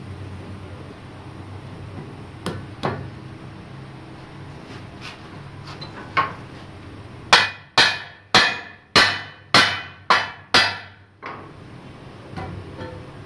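Hammer blows on a steel truck wheel rim: a few light knocks, then a run of about seven hard, ringing strikes, roughly two a second, in the second half.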